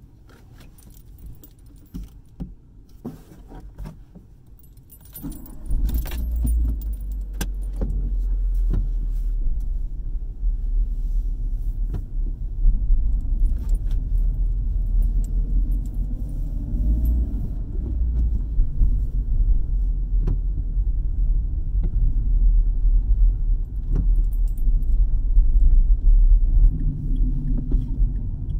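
Keys jangling and a few sharp clicks, then from about five seconds in a car runs with a steady low rumble.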